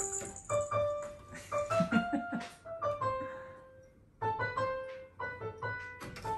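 Background piano music: a light melody of separate notes.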